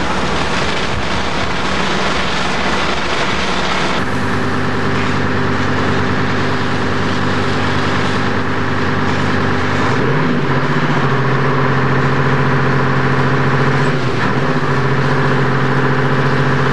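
A fire engine's motor running steadily while it pumps water to the hose lines. The sound changes abruptly about four seconds in, the engine's pitch rises about ten seconds in, and it dips briefly a few seconds later.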